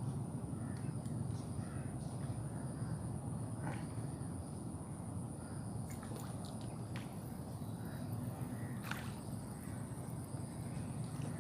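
Outdoor ambience at a fishing spot: a steady low rumble, a continuous high-pitched whine, and a few scattered short clicks and chirps.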